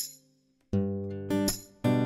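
Background music: acoustic guitar strumming chords, with a short pause after the first strum before the chords start again under a second in.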